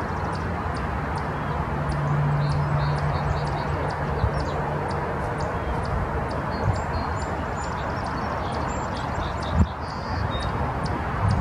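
Outdoor field ambience: a steady rushing background noise with a low hum for a few seconds. Short, high chirps repeat about twice a second throughout.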